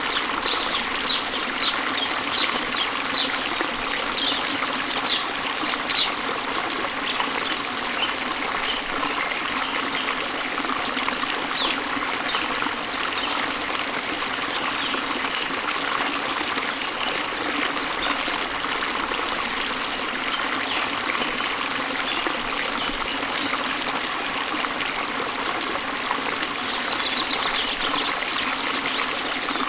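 Steady running water of a waterfall. Over it, a bird calls in short high chirps, a regular string of about one a second in the first six seconds, a few scattered ones after, and a quick cluster near the end.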